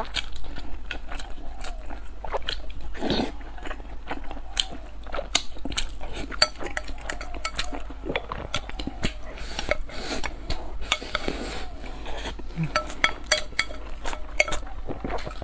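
Close-miked eating: chopsticks clicking and scraping against a ceramic bowl, mixed with chewing and biting. The clicks come thick and irregular, with a few short rougher smears.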